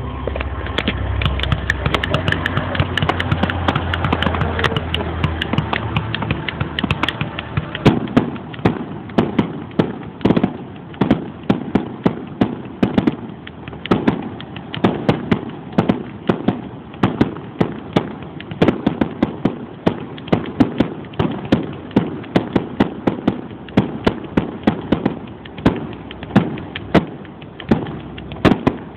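Fireworks going off: a dense din of bursts that turns, from about seven seconds in, into a rapid barrage of sharp bangs, several a second.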